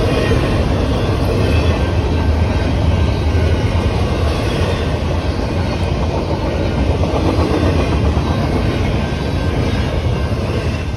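CSX double-stack intermodal freight train's container well cars rolling past at a grade crossing: a steady, loud rumble of steel wheels on rail, easing slightly near the end.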